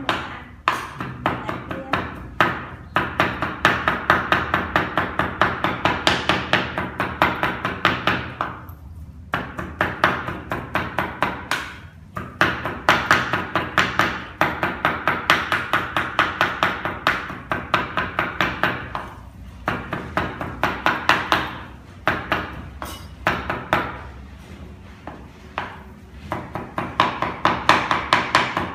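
Cleaver chopping raw pork into mince on a wooden chopping board: fast, even strokes, several a second, in long runs broken by brief pauses.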